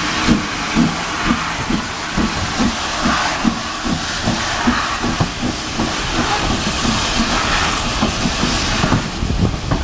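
Saddle-tank steam locomotive pulling away with a train of carriages: regular exhaust chuffs about two a second over a steady hiss of steam.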